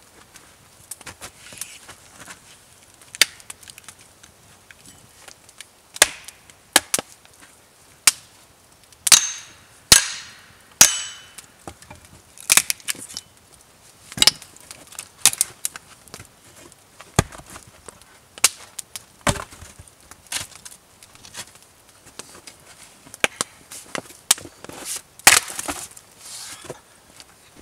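Axe splitting firewood rounds on a chopping block: irregular sharp chops and cracks of wood, a few of them ringing briefly.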